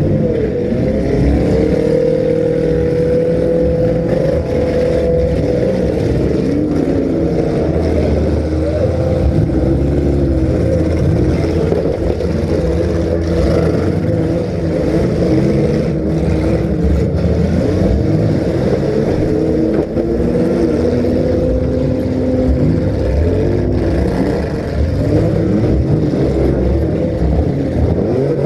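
Several compact-car engines running and revving at once, their pitches rising and falling and overlapping.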